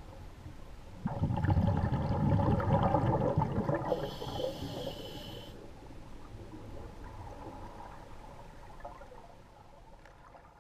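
Scuba diver breathing through a regulator underwater: a loud rush of exhaled bubbles starts about a second in, followed by the short hiss of an inhalation, then quieter bubbling that fades.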